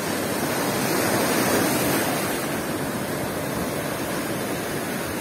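Storm surf breaking and washing over a stony shore: a steady churning rush of waves and foam, swelling a little about a second or two in.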